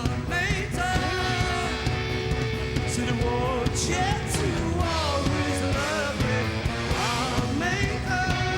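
Rock band playing live, with a voice singing over full band backing.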